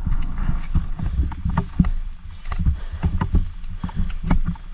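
Giant Stance mountain bike ridden through water and over a rough, flooded trail: tyres rumbling and splashing, with frequent irregular knocks and rattles as the bike bounces over the ground.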